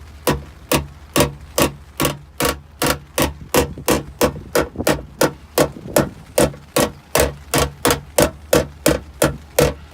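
Steady, even hammer tapping on a car fender's sheet metal, nearly three light taps a second, each with a short metallic ring: tapping down to release the tension around a crushed body line during paintless dent repair.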